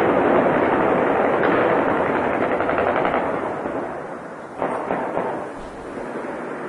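Heavy, sustained automatic gunfire, many weapons firing at once in a continuous clatter of shots, easing off about four seconds in, with one sharp, louder shot shortly after and lighter firing to the end.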